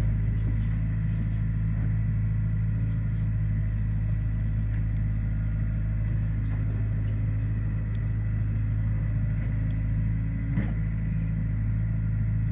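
An engine running steadily at an even low idle, with a deep, unchanging hum.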